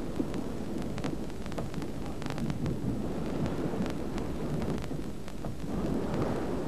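Heavy sea rushing and breaking against a longliner's bow, with wind buffeting the microphone: a steady low rumbling rush with scattered faint crackles.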